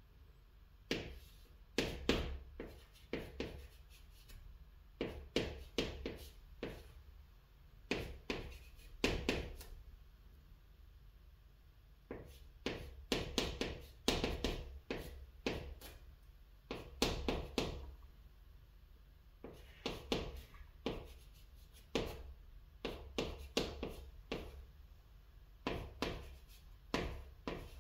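Chalk writing on a chalkboard: runs of quick, sharp taps and short scrapes as each stroke of a character goes down, with brief pauses between characters.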